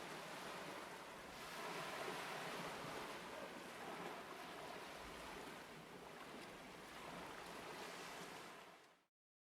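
Ocean surf sound effect: a steady wash of waves, swelling a little, that fades out about eight and a half seconds in.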